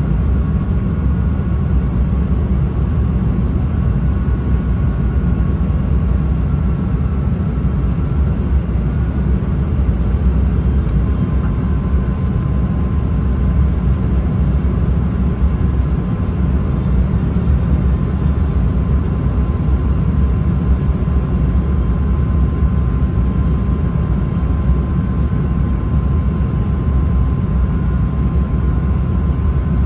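Steady cabin noise inside an Embraer E175 regional jet on final approach: a loud, even low rumble of airflow and engines, with a faint steady whine above it.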